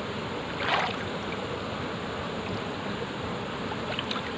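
Water sloshing and splashing as a person wades chest-deep in a stream and sweeps his hands through it, over a steady rush of stream noise. A louder splash comes under a second in, and a few small splashes near the end.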